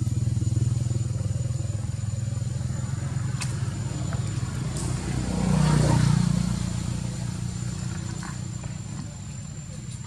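Low, steady motor-vehicle engine hum that swells to its loudest about six seconds in, as if a vehicle passes, then fades.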